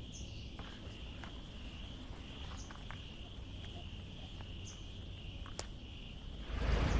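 Crickets trilling, a faint steady high-pitched drone with a few faint clicks. Near the end a low engine rumble of an approaching light truck comes in.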